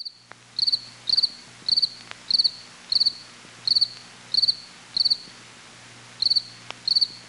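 Cricket chirping, nearly two chirps a second, each chirp a quick run of a few pulses, with one brief pause just after the middle. A faint low hum runs underneath.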